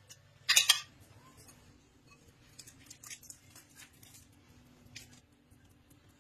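Kitchen utensils clicking against dishes: a quick run of sharp metallic clicks about half a second in, then scattered lighter clicks and rustles as toppings are spooned and sprinkled, over a steady low hum.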